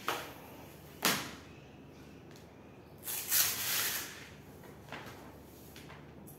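PVC vinyl flooring planks being handled and laid on a hard floor. A sharp knock comes at the start and another about a second in. About three seconds in, a longer rustle as a plank is lifted and moved is the loudest sound, and a light tap follows near the end.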